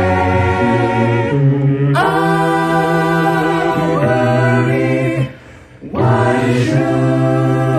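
A mixed-voice a cappella ensemble of men and women singing in close harmony, holding sustained chords that change every second or two. The voices break off briefly about five seconds in, then come back in together.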